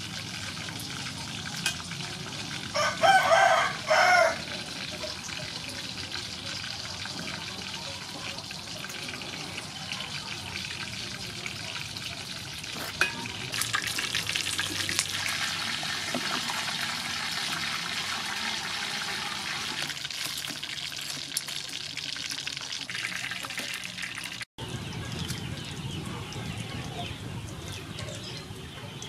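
Battered blue crabs deep-frying in soybean oil, a steady sizzle that grows louder about halfway through. A rooster crows once about three seconds in, the loudest sound.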